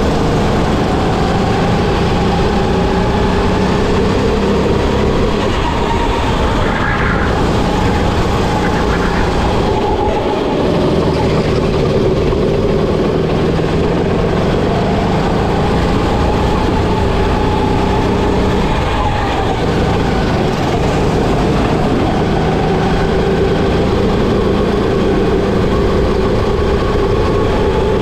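Go-kart engine heard from onboard at racing speed, its pitch rising and falling slowly as it accelerates along straights and eases for corners, over steady wind and tyre rush.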